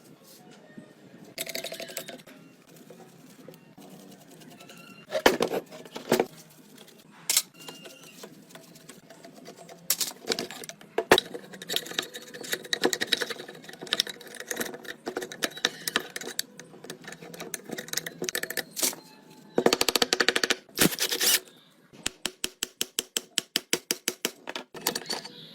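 Workshop handwork on a rusted saw: scattered sharp knocks and clicks and a few short scraping rasps, then a run of quick, even ticks, about six a second, near the end.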